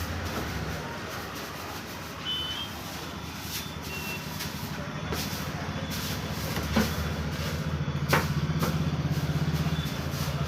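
Road traffic: a vehicle engine running with a steady low rumble that grows louder near the end. Sharp clicks and a couple of short high beeps are heard over it.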